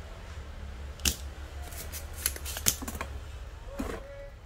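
Spring-loaded desoldering pump (solder sucker) snapping sharply about a second in as it fires, sucking molten solder out of a relay's pin holes on a circuit board, followed by several more sharp clicks and a knock as the tools are handled.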